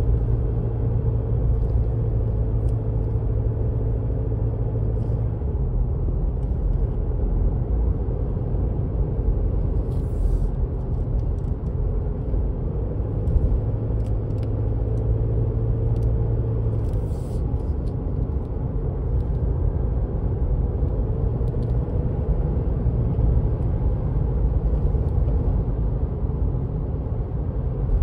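Steady low drone of a car's engine and tyres on asphalt, heard from inside the cabin while driving at road speed.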